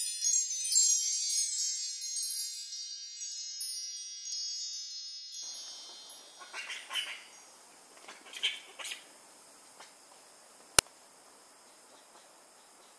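A wind-chime sound effect: a cascade of high tinkling chimes that fades away over about five seconds. Then a faint outdoor background with a few short chirps, and a single sharp click later on.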